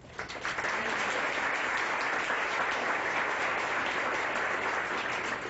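Audience applauding: a full round of clapping that starts at once and begins to die away near the end.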